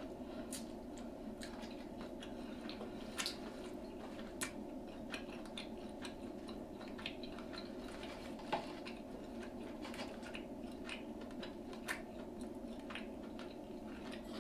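Close-up eating sounds: chewing and biting into batter-fried seafood, with many short irregular crunchy clicks and snaps over a steady low hum.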